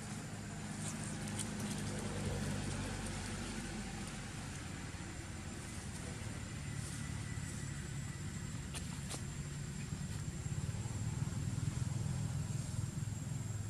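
Low, steady engine hum of a motor running somewhere close by, getting a little louder in the second half, with a thin high steady whine and a few faint ticks.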